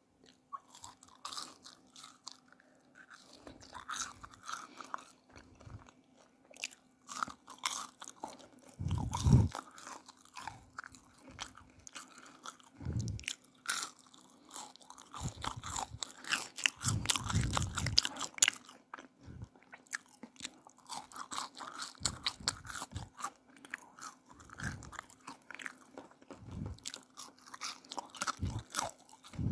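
Close-miked ASMR eating of french fries: irregular crisp crunching bites and chewing, with several louder crunches around a third and a half of the way through. A faint steady low hum runs underneath.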